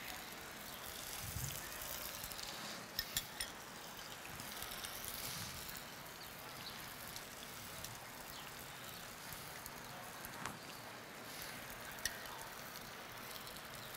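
Boiled dumplings searing in a hot pan, a faint steady sizzle, with a few sharp clicks about three seconds in and twice near the end.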